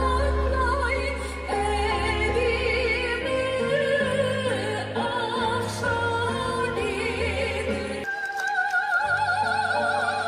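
A woman singing into a microphone in an operatic style, with wide vibrato on long held notes, over instrumental accompaniment with a steady low bass. The bass drops out for about a second late on, then returns.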